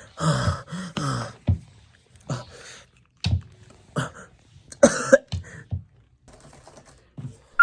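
A man coughing over and over in a string of short, separate coughs, the first one the longest.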